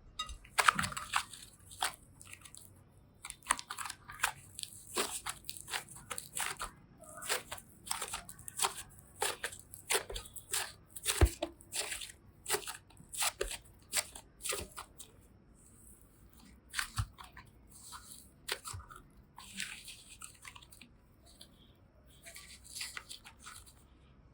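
Clay and slime being squeezed and mixed by hand, giving irregular crisp crackles and pops.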